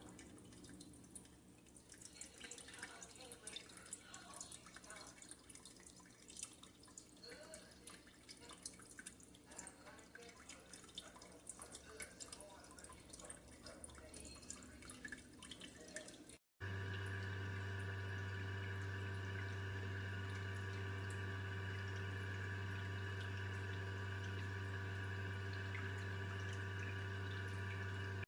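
A small tabletop fountain's water trickling and dripping faintly in irregular small drips. About sixteen seconds in it cuts to a steady hum.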